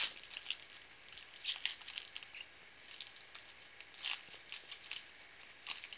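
Foil wrapper of a trading-card pack being torn open and crinkled by hand: an irregular run of sharp crackles and rustles, with the loudest tears at the start and around four and nearly six seconds in.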